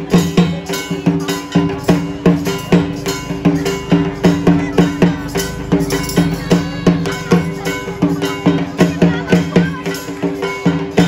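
Rhythmic drum music with regular, evenly spaced beats over a few sustained low tones, with metallic percussion in the mix.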